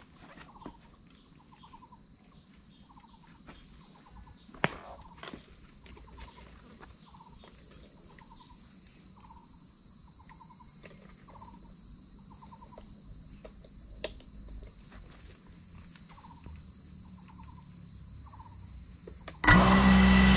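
Insects calling: a steady high trill, with a short buzzy chirp repeating about once a second. Two sharp clicks, about 5 and 14 seconds in. Music comes in loudly near the end.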